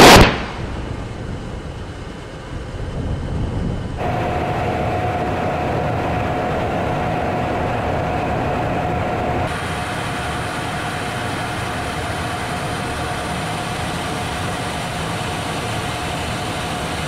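A short, loud explosion at the very start, then the steady noise of a B-52 bomber's turbofan engines and rushing air, heard from inside the aircraft in flight. A steady hum sounds for several seconds in the middle.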